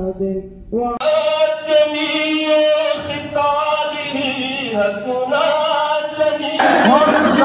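Men's voices singing a devotional chant in chorus, holding long wavering melodic lines. About a second in the sound changes abruptly to a fuller group of singers, and near the end it grows fuller and louder.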